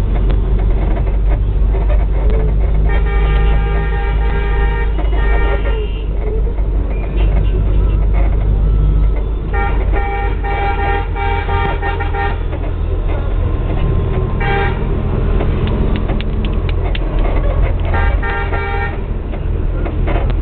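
Bus engine running, heard from inside the cabin, with a vehicle horn sounding four times: two long blasts of about two to three seconds, a short toot, and a blast of about a second near the end.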